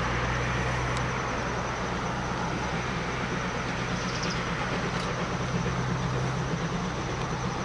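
Steady noise of cars passing on a road beside the railway, mixed with the distant running of the D51 498 steam locomotive as it approaches.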